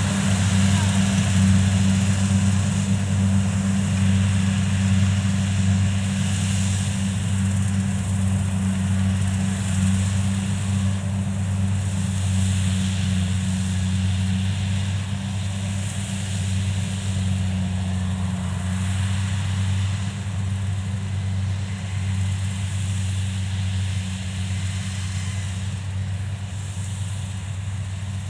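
Kubota DC70 Plus rice combine harvester's diesel engine running steadily under load while it cuts and threshes rice and throws out the straw: a steady low drone with machinery noise over it, slowly getting quieter.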